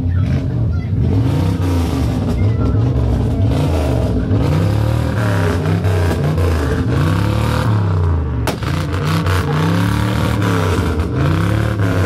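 1977 Chrysler New Yorker's 7.2-litre V8 revved repeatedly while standing, the revs rising and falling about once every second or so.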